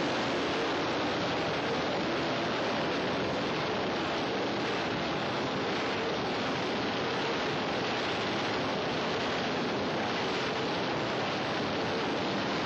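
Steady, dense din of a grid full of classic motorcycle engines running together, waiting for the start.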